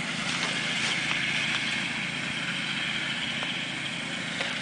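7¼-inch gauge ride-on backyard train running, a steady mechanical drone with no breaks.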